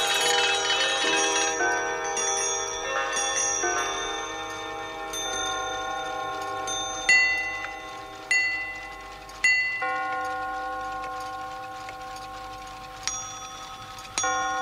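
Many clocks striking three o'clock. An alarm-clock bell ringing cuts off about a second in, then overlapping chimes sound, with three loud strikes about a second apart in the middle and two more near the end.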